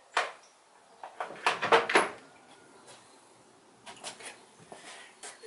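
Loose metal bolts clinking and rattling as they are dug through and picked up by hand, loudest in a burst of clatter about a second and a half in, with a few lighter clinks near the end.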